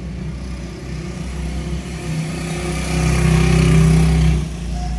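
A motor vehicle's engine running with a steady low hum. It swells louder about three seconds in, then falls back suddenly near the end.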